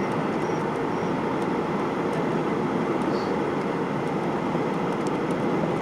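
Steady cabin noise of a Ryanair Boeing 737-800 on approach: the even roar of its CFM56 turbofan engines and the airflow past the fuselage, with no change in pitch or level.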